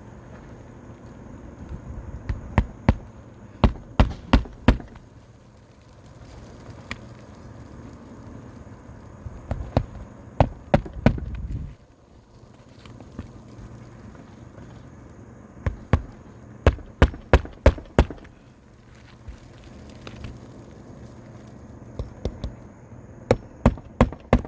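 Hammer blows on an asphalt shingle roof, in four quick runs of several sharp strikes each, over a steady background hum.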